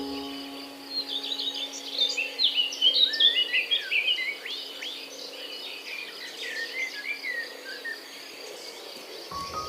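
Birds chirping and twittering in quick, varied calls, busiest and loudest from about two to four seconds in. A steady low held tone hums underneath until near the end.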